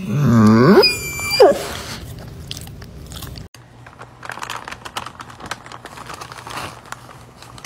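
A shaggy sheepdog gives a loud, drawn-out vocal cry that swoops down and back up in pitch, then a shorter one a moment later. After a cut, a brown paper bag with a cat inside crinkles and rustles as it is handled.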